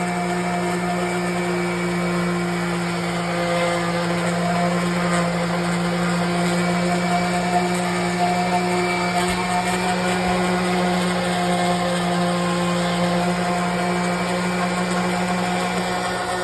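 Electric power sander running steadily on a log wall, a constant motor hum that holds the same pitch without a break.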